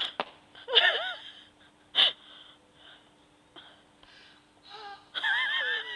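People's wheezy, gasping vocal sounds with wavering cries: one warbling cry about a second in, a short sharp one about two seconds in, and a longer warbling one near the end, with quieter gaps between. A faint steady hum runs underneath.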